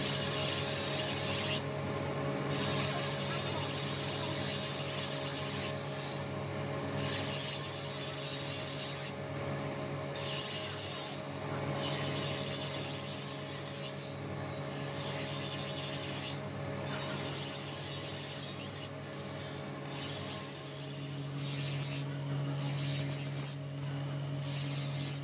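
A steel sword blade being ground on a shaft-driven grinding wheel: a harsh, hissing grind in repeated passes, each breaking off briefly every couple of seconds, over the steady hum of the spinning wheel.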